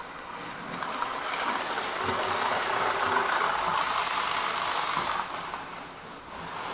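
Electric model train running along the layout track: its motor and wheels make a rushing whir that builds over the first couple of seconds, stays up, then falls away about five seconds in.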